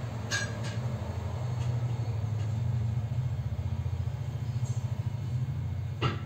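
Hot air gun blowing steadily with a low, even drone, heating the phone's circuit board from underneath to melt the solder on the battery connector. A light click comes near the start and another near the end.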